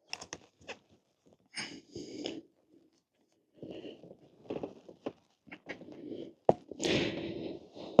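Rubber tire on an electric scooter's rear wheel being worked back over the rim lip by hand and with tire levers: scattered clicks, scrapes and rubbing, with a sharper click about six and a half seconds in.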